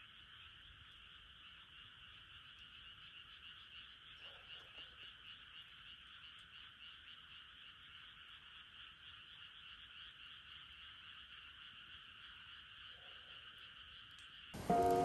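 Faint, steady chorus of calling animals, a continuous high trilling. Background music comes in suddenly near the end.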